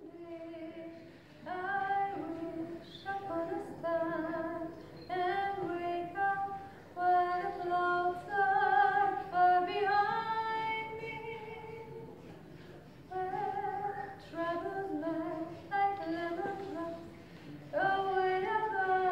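A woman singing solo in phrases with a clear vibrato, with a short pause in the middle.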